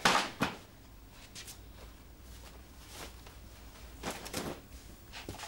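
A few short knocks and thumps: a loud one at the very start, a second about half a second later, then a cluster of lighter knocks about four seconds in.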